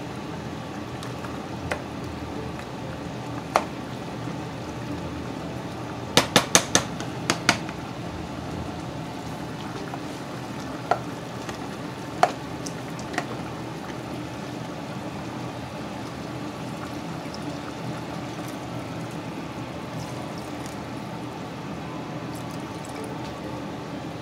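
Chicken and pork afritada simmering in a stockpot while being stirred with a black plastic ladle, the pieces of meat sliding and the sauce bubbling steadily. The ladle knocks sharply against the pot: a quick run of about five knocks some six seconds in, then a few single knocks.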